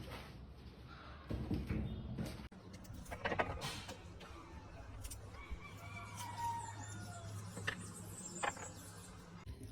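A rooster crowing once, a drawn-out call about halfway through, among a few scattered knocks.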